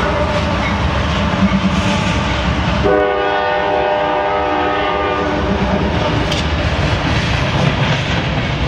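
Freight train of covered hopper cars rolling past close by, a steady rumble and wheel noise. About three seconds in, a diesel locomotive's air horn sounds one multi-note chord for a little over two seconds.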